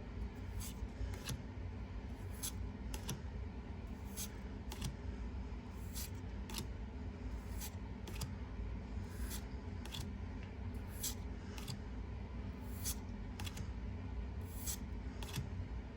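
Pokémon trading cards being slid one behind another as a freshly opened booster pack is flipped through, with short sharp card swishes about one or two a second over a low steady hum.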